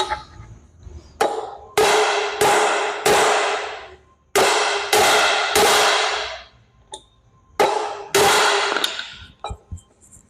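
Hammer blows on a steel driveshaft yoke, driving a U-joint bearing cap, about ten ringing metal strikes in three bursts of three or four.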